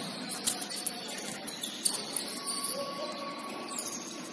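Basketball game sounds: sneakers squeaking on the court and a couple of sharp knocks over a background of indistinct voices.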